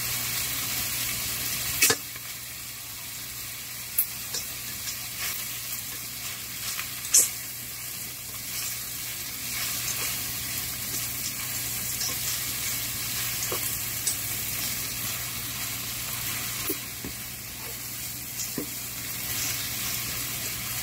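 Shrimp, onion and garlic sizzling in oil in a frying pan as they sauté, stirred with a spatula whose knocks and scrapes against the pan come as scattered sharp clicks, the loudest about seven seconds in.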